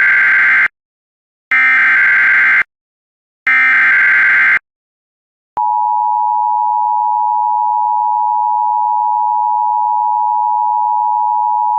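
Emergency Alert System SAME header: three bursts of digital data tones, each about a second long with short gaps between them. About five and a half seconds in, the steady two-tone EAS attention signal begins and holds. Together they announce an incoming emergency alert, here a severe thunderstorm warning.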